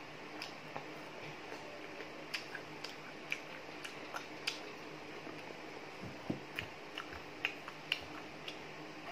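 Chewing on crispy chicharong bulaklak (deep-fried pork mesentery) with rice: scattered short, sharp crunches at an uneven pace over a faint steady hum.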